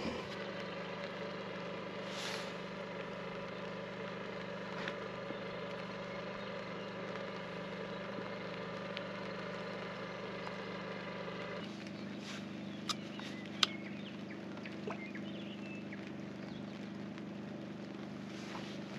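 A boat's engine running steadily at an even speed; about two-thirds of the way through its note changes abruptly to a different steady pitch, and a couple of sharp clicks follow soon after.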